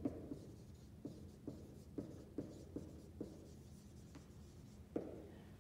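Dry-erase marker writing on a whiteboard: a string of short, faint strokes, about one every half second, as the letters are written out.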